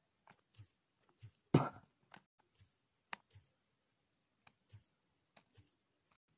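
A string of faint clicks and soft taps, roughly two a second, with one louder knock about one and a half seconds in.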